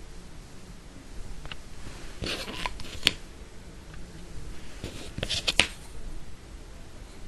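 Handling noises: rustling with a few sharp clicks in two short clusters, about two seconds in and again past the five-second mark.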